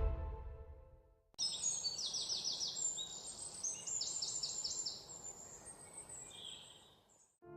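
Bird calls: several series of quick, high chirps over a faint hiss, starting about a second and a half in and cutting off abruptly near the end. Background music fades out in the first second.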